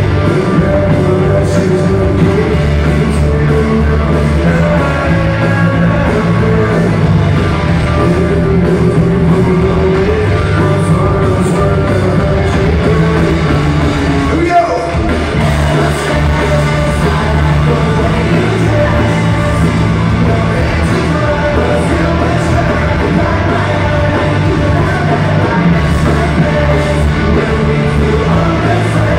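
Live rock band, electric guitars, drums and a lead vocal, playing a song at full volume in an arena, heard from the crowd with the hall's echo. The band thins out briefly about halfway through, then comes back in.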